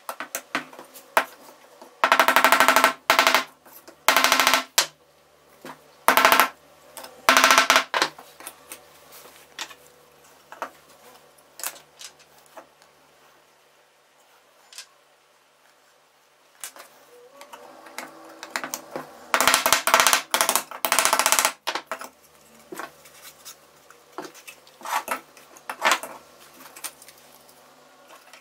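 Thin laser-cut plywood parts handled and fitted together on a wooden block, giving bursts of rapid clicking, rattling and scraping of wood on wood. There are several loud bursts in the first third and another cluster about two-thirds of the way through, with scattered light clicks between.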